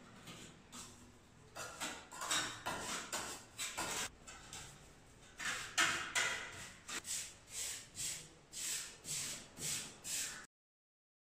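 Steel trowel scraping and smoothing wet cement mortar on a concrete slab edge, in a run of short strokes that fall into about two a second in the second half. The sound cuts off suddenly near the end.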